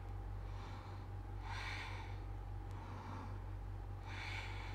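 A woman breathing audibly, twice, about a second and a half and four seconds in, pacing her breath to a seated knee-to-chest yoga movement.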